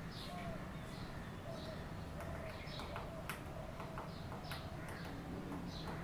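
Fulvous-breasted woodpecker pecking at a wooden post: sharp, irregular taps, a dozen or so, starting about two seconds in. Repeated short bird chirps run throughout over a steady low rumble.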